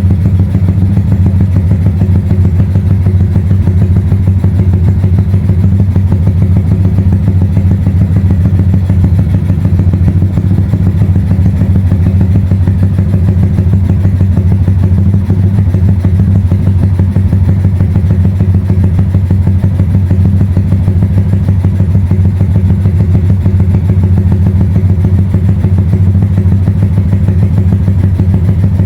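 Tuned single-cylinder four-stroke motorcycle engine idling loud and steady while it warms up.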